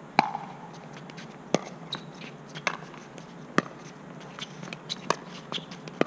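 Pickleball rally: sharp pops of paddles striking the hollow plastic ball and the ball bouncing on the hard court, about one every one to two seconds, the loudest just after the start.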